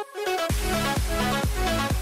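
Electronic dance background music; after a brief break, a heavy kick drum and bass come in about half a second in and carry a steady beat.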